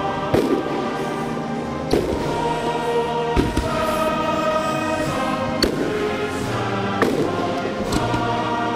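Choral music playing steadily, with about six firework bangs at uneven intervals cutting through it.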